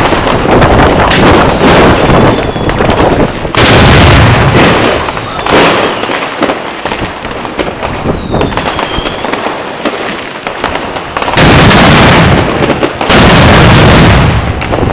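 Homemade firecracker mat going off: a dense, rapid crackle of firecracker bangs with three long spells of very loud, overloading blasts, about four seconds in and twice near the end.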